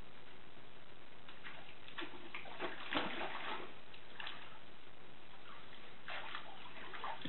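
Water sloshing and splashing in a plastic kiddie pool as a dog wades through it, in a few short bursts, the busiest about three seconds in, over a steady background hiss.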